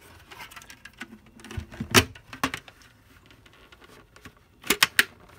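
Hard plastic parts of a Dyson DC33's clear dust bin and cyclone assembly clicking and rattling as they are fitted back together, with a sharp click about two seconds in and a quick run of three clicks near the end.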